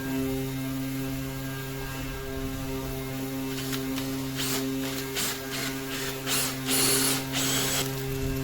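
A steady machine hum throughout, with a series of short noisy strokes in the second half, the loudest near the end.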